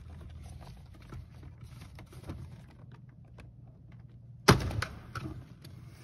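Plastic retaining clips of a BMW E92 headlight switch being worked out of the dashboard: small plastic clicks and handling, then one loud sharp snap about four and a half seconds in as a clip lets go, followed by a few lighter clicks.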